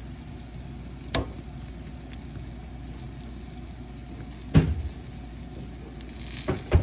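Egg pancake sizzling steadily in oil in a frying pan on a gas burner. Sharp knocks come about a second in, about two-thirds of the way through, and twice in quick succession near the end.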